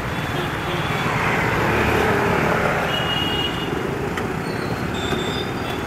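Busy road traffic passing close by, cars and motorcycles running in a steady wash of engine and tyre noise. It swells louder about one to two seconds in as a vehicle goes past.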